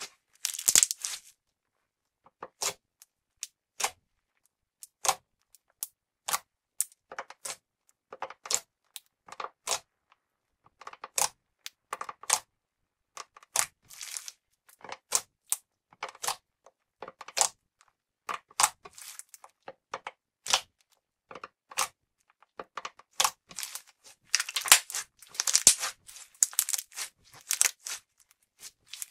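Pink putty slime squeezed and kneaded by hand, giving sharp pops and clicks a couple of times a second, with denser crackling spells now and then, the loudest about three-quarters of the way through.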